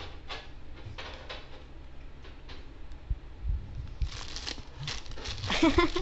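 Cellophane wrapping in a cardboard gift box crinkling and rustling as items are lifted out, with light knocks of things being handled. The crinkling grows denser about four seconds in, and a voice starts up near the end.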